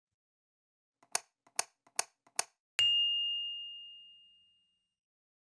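Outro logo sound effect: four short ticks a little under half a second apart, then a single bright ding that rings out and fades over about a second and a half.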